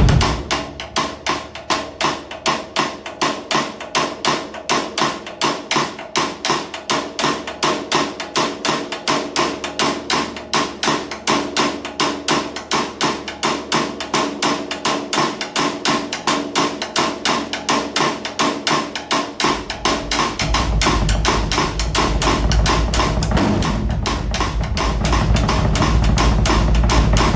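Drum music: a fast, even run of sharp, woody percussive hits over held tones. About twenty seconds in, a deep bass enters and the full beat fills in.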